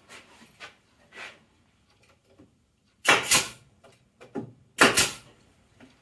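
Two loud, sharp bangs about two seconds apart, each trailing off over half a second, with lighter knocks and clicks before and between them: wooden beehive box parts being worked in a bench jig.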